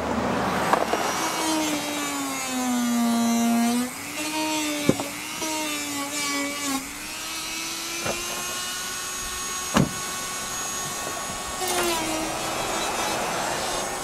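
Handheld power tool sanding and deburring the cut edge of a plastic car bumper: a motor whine that sags in pitch as it bears on the work and recovers, with a few sharp clicks.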